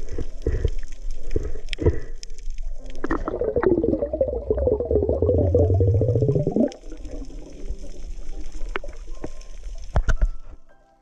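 Underwater recording with scattered knocks and taps, then from about three seconds in a few seconds of dense bubbling gurgle whose low pitch rises steadily before it stops, followed by more clicks.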